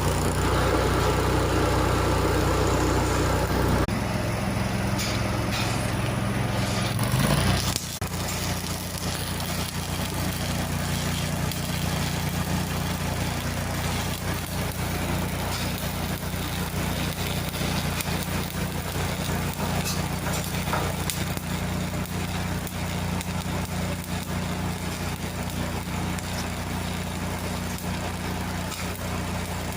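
An engine running steadily at idle. About 8 seconds in, its note changes and it gets a little quieter.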